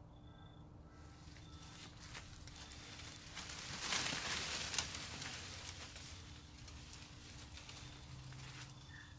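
Leafy branches rustling and brushing through undergrowth, swelling to a peak about four seconds in with one sharp snap of a twig, then dying away.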